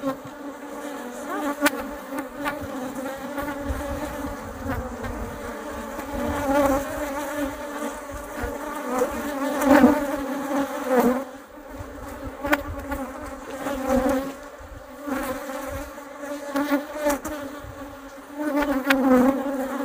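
Honeybees buzzing at a hive entrance: a continuous hum that swells and fades, with a few brief clicks. The bees are mobbing an intruding death's-head hawkmoth.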